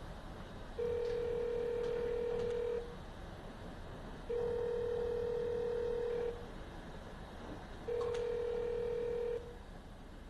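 Telephone ringback tone: three long, steady beeps at one low pitch, the line ringing while the caller waits for the call to be picked up.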